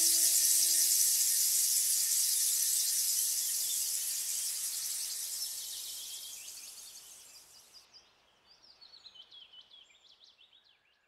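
Dense, high-pitched chorus of insects, steadily fading out through the first eight seconds, with a held music note ending about a second in. Faint chirping bird calls follow near the end as everything fades towards quiet.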